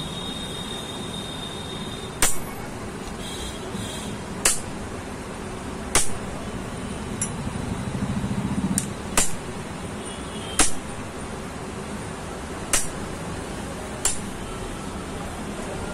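About seven sharp metal taps, a second or two apart: a steel rod struck with pliers to drive a newly made bush into the end plate of a Mahindra Scorpio's AC blower motor, replacing the worn bush that made the motor noisy.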